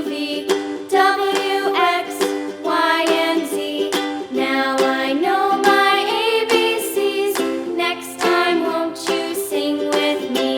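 Background music: a bright melody over a steady beat.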